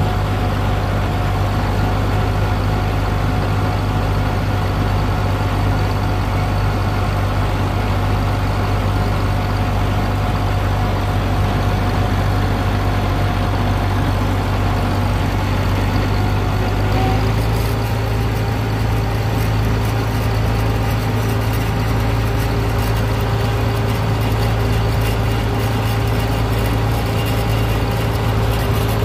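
Farm tractor engine running steadily under way, heard from the tractor's seat. Its note changes slightly about seventeen seconds in.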